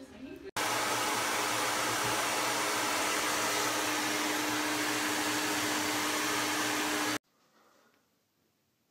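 A hair dryer blowing steadily: an even rushing hiss over a steady motor hum. It starts abruptly about half a second in and stops abruptly around seven seconds.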